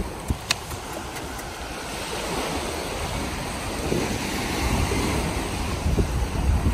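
Small waves washing onto a sandy beach, with wind buffeting the microphone and growing stronger in the second half. Two brief sharp clicks about half a second in.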